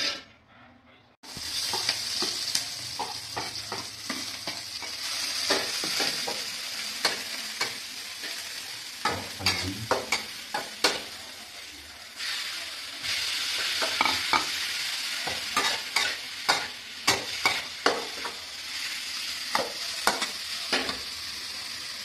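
Hot oil sizzling in a steel wok while a metal spatula scrapes and clinks against the pan. The sizzle starts suddenly about a second in and grows louder and fuller about twelve seconds in, as pork goes into the wok.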